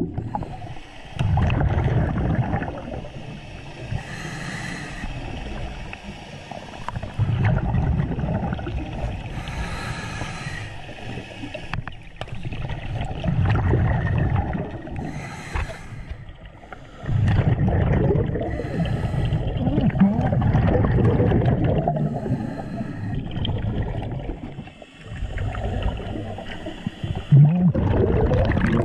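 Scuba diver breathing through a regulator underwater: a short hiss on each inhale, then a longer rumbling gurgle of exhaled bubbles, the cycle repeating every five or six seconds.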